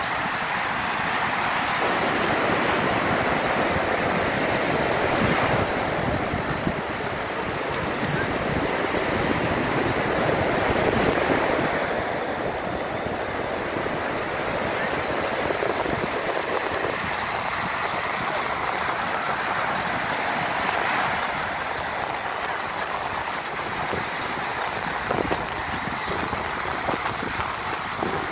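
Ocean surf breaking and washing up a sandy beach, the rush of water swelling and easing every several seconds.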